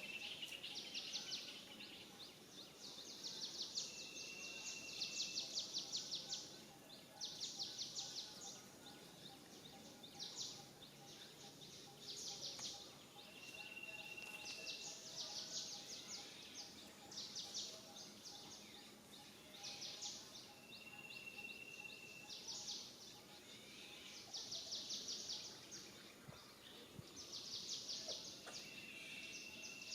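Faint outdoor ambience: bursts of rapid, buzzy high-pitched trills come and go every few seconds, and a single steady whistled note, about a second long, repeats four or five times.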